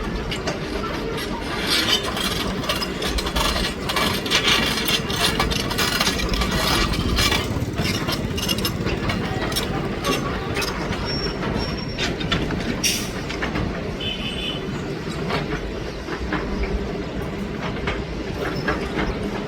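Komatsu PC200 hydraulic excavator working: its diesel engine runs steadily under many sharp metallic clanks, with a couple of brief high squeals about halfway through.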